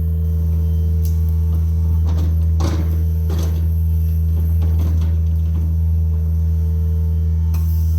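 John Deere mini excavator's diesel engine running steadily with a low drone, and a few short scrapes and clatters from the machine's work about two to five seconds in.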